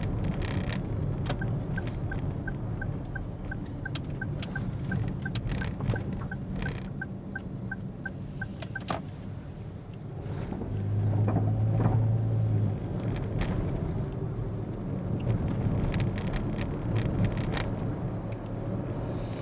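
Daihatsu Move Custom RS (LA100S) on the move, heard as a steady low road-and-engine rumble with scattered short knocks. An evenly spaced light ticking, about three a second, runs for several seconds near the start, and a louder low hum swells for about two seconds past the middle.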